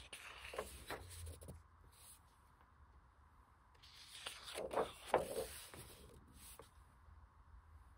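Pages of a large hardcover art book turned by hand: two page turns, each a quick paper rustle and slide, the second, about four to five seconds in, the louder.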